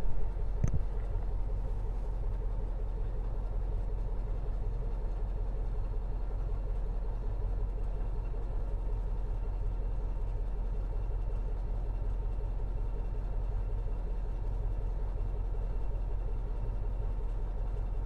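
Truck engine running, heard from inside the cab as a steady low rumble, with a sharp knock about a second in.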